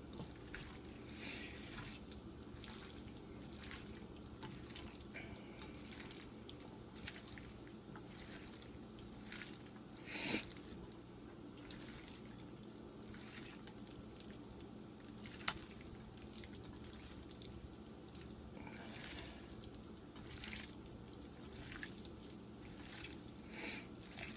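Bare hands squishing and rubbing a curry-powder, salt and oil marinade into raw chicken and chopped vegetables: faint wet squelches and pats, with a louder one about ten seconds in.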